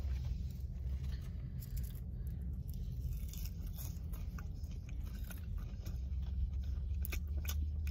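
A man chewing a mouthful of McDonald's french fries close to the microphone, with small soft crunching clicks over a steady low hum.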